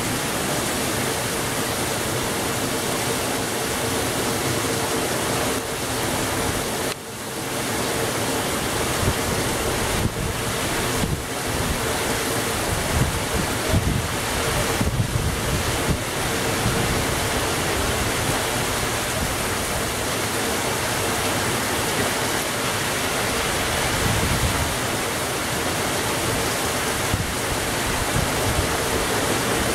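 Heavy rain falling steadily, a dense even hiss, with a faint steady hum underneath.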